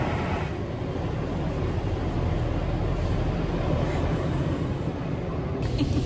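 Touchless automatic car wash running, heard from inside the car: a steady low rumble with a rushing hiss over it that eases about half a second in.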